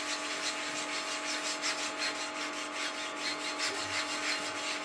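Paper napkin rubbed briskly back and forth over the bare bottom of a cast-iron skillet, working a thin coat of linseed oil into the iron to season it. A steady low hum runs underneath.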